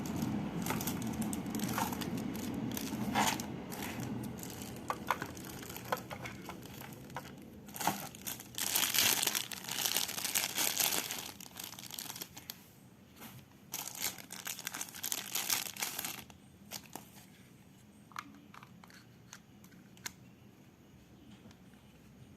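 Plastic packaging crinkling and tearing as radio accessories are unwrapped, loudest in two stretches, then giving way to a few scattered small clicks for the last several seconds.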